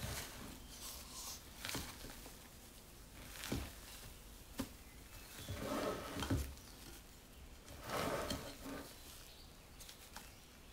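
Spatula folding thick sponge-cake batter and meringue in a glass bowl: soft scraping and wet squelching sounds that swell with each fold, with a few short sharp knocks in between.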